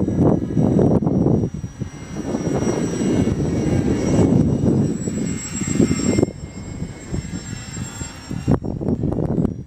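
Extra 300 aerobatic plane flying past, its engine and propeller heard over heavy wind buffeting on the microphone. A high whine from the plane is clearest in the middle and cuts off about six seconds in.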